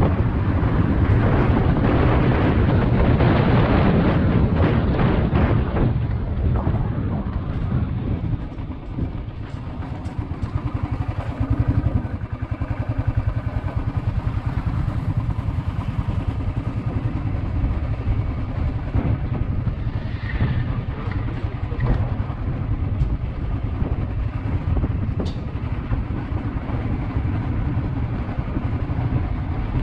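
Motorcycle engine running as the bike is ridden, a steady low rumble with wind noise on the microphone.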